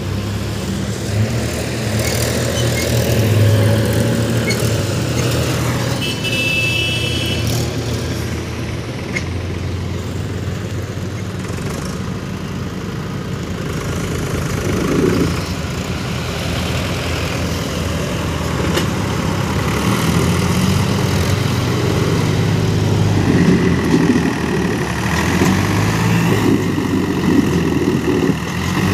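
Powertrac tractor's diesel engine running hard as it strains to pull a heavily loaded sugarcane trolley, its rear tyres spinning in the dirt. The engine grows louder over the last several seconds.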